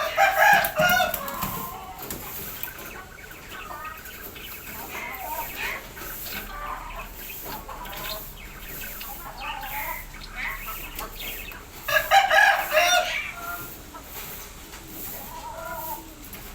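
Birds calling: two loud, wavering calls, one at the start and one about twelve seconds in, with softer calls in between.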